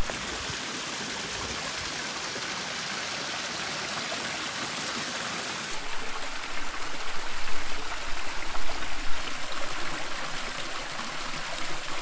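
Small waterfall trickling over rock ledges into a shallow pool: a thin, steady rush of falling water from a stream running low. About six seconds in it turns louder and more uneven.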